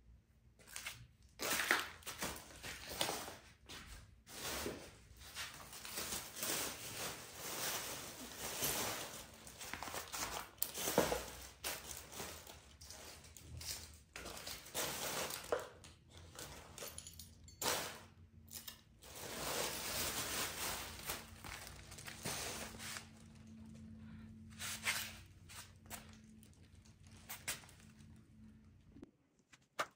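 Plastic shopping bag rustling and crinkling on and off as rubbish is picked up off the floor and put into it.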